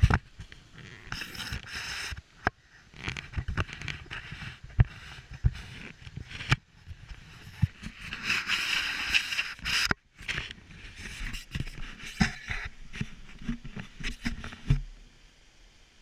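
Handling noise from a handheld camera being carried on foot: irregular knocks, thumps and scraping, likely with footsteps on the gravel path. About eight seconds in there is a louder stretch of hiss lasting a couple of seconds.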